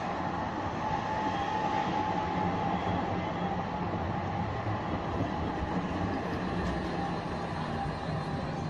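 SGP articulated street tram passing close by: a steady rolling rumble of steel wheels on rails. A high steady whine is strongest in the first few seconds and then fades.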